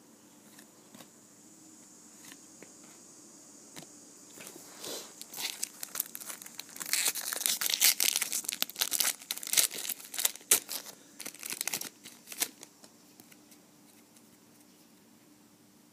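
A foil trading-card pack wrapper being torn open and crinkled, a dense crackling run of tearing and crumpling that builds about five seconds in, peaks in the middle and dies away about three seconds before the end.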